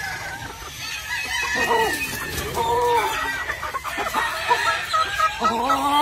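Gamefowl roosters crowing over hens clucking: one long crow begins about a second and a half in, and another near the end.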